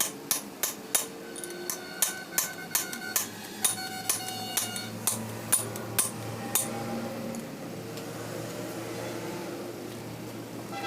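Metal differential parts being tapped and knocked with a tool: a run of sharp metallic strikes, about two a second, many leaving a short ringing note, which stop about two-thirds of the way through. A low hum lies underneath.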